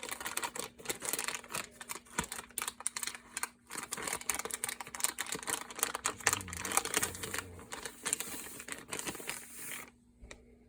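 Plastic packaging of a Barrel Maid paintball barrel squeegee crinkling and rustling with rapid crackles and tearing as it is opened by hand; the handling stops abruptly about ten seconds in.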